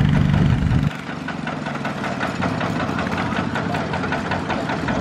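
Single-cylinder diesel engine of a two-wheel walking tractor running under load as it pulls its cart through mud, a steady knocking chug. About a second in, the deep loud drone drops away to a quieter, rapid knocking beat.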